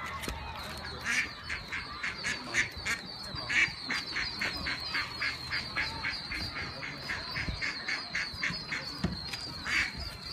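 A mother duck and her ducklings calling: a rapid, even run of short calls, about three to four a second, over a thin, high, continuous peeping.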